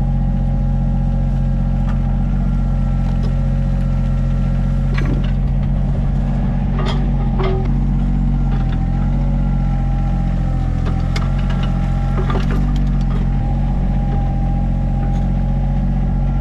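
Sany mini excavator's diesel engine running steadily under work, with a steady whine over its hum and scattered knocks and clinks as the chained pipe-mop attachment drags and smooths dirt in a ditch.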